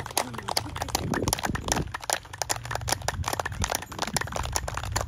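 A group of people clapping their hands: many quick, uneven claps, not in unison.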